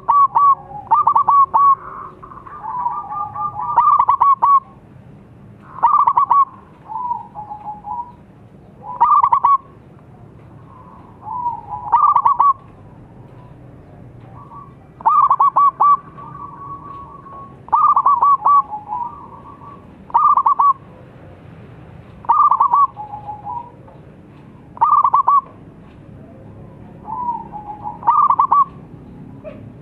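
Zebra dove (perkutut) cooing: about a dozen short phrases of quick, staccato coos, one every two to three seconds.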